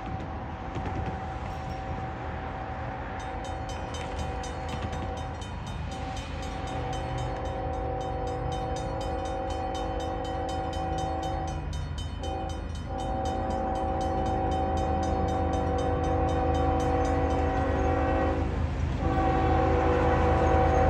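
Approaching Norfolk Southern freight locomotive's air horn sounding long blasts broken by short gaps, with one short blast about 12 seconds in, as for a grade crossing. A crossing bell rings fast and steadily through much of it, and the engine rumble grows louder as the train nears.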